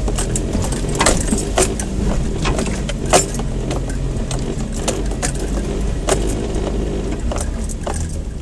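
An off-road 4x4 engine running at low revs while the vehicle crawls up a rough dirt track. Frequent knocks and rattles come from the vehicle jolting over the ruts, the sharpest about three seconds in.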